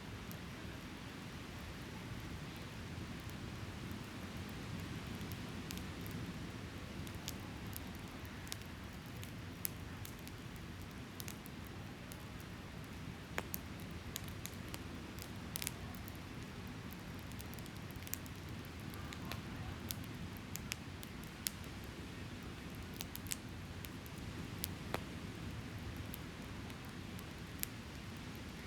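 Campfire crackling, with scattered sharp pops and snaps, over a steady low rush of waves on the beach.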